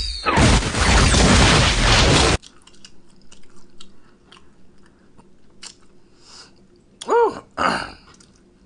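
A loud burst of harsh, hissing noise, an edited-in sound effect with a short falling whistle near its start, cuts off sharply after about two seconds. Then come soft mouth clicks and smacks from the eater, and two short hums near the end.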